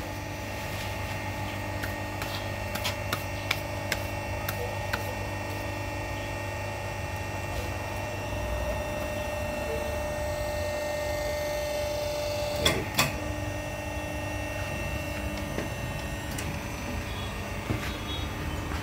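Hydraulic hose crimping machine running, its electric motor and hydraulic pump humming steadily as the dies press a fitting onto a hose. A higher whine holds for a few seconds and cuts off with two sharp clicks about two-thirds of the way through.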